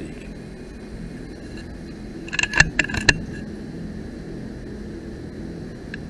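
FX Maverick .22 PCP air rifle firing and the pellet striking: a quick cluster of sharp clicks and knocks, with a little ringing, about two and a half seconds in, over a steady low background hum.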